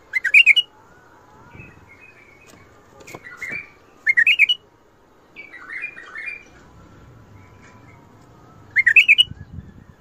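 White-eared bulbul (Iraqi bulbul) singing about five short, bright, warbled phrases with pauses between them. The phrases are in the Mandali and Badra song style that Iraqi bulbul keepers prize.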